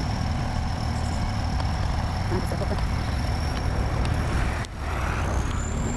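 Heavy diesel engine running steadily with a low rumble, with a thin high whine over it. The sound drops out briefly about three-quarters of the way through, then resumes.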